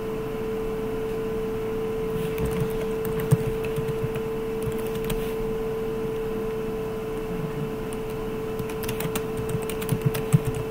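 Computer keyboard being typed on in a few short runs of key clicks, over a steady hum.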